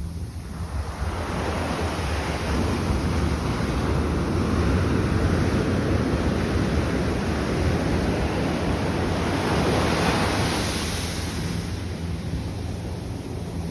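Ocean surf: a wave swells up and washes in, then eases off near the end, with wind rumbling on the microphone underneath.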